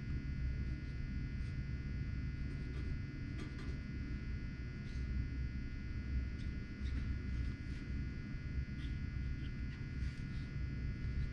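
Steady low background hum with faint, scattered light clicks and scrapes of small objects being handled.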